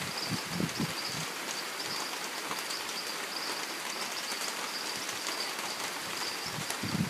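Rain falling steadily on rainforest foliage, an even hiss, with a steady high-pitched buzz running through it and a few low thumps near the start and again near the end.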